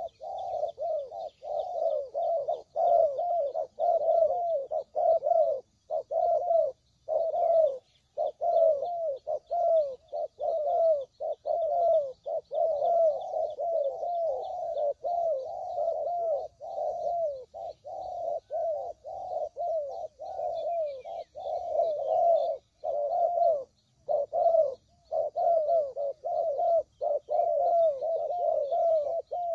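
Spotted doves cooing in repeated phrases with only brief pauses, faint high chirping of small birds behind.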